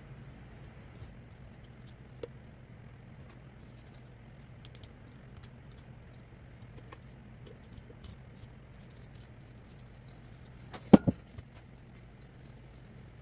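Hard resin casting being handled and trimmed at a work table: faint scrapes and small clicks, then two sharp knocks close together about eleven seconds in, over a steady low hum.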